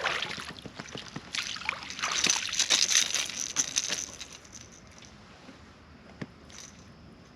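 Water sloshing and splashing against a kayak, loudest from about two to four seconds in, then fading.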